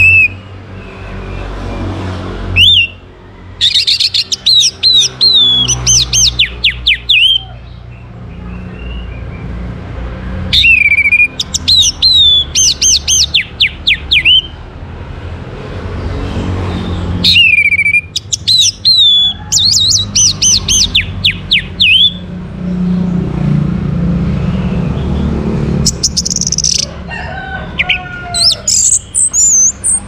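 Orange-headed thrush singing loud phrases of about four to five seconds with short pauses between, three full ones and a fourth starting near the end. Each phrase opens with a slurred falling whistle and runs into a fast string of high, varied notes. A steady low rumble sits under the song.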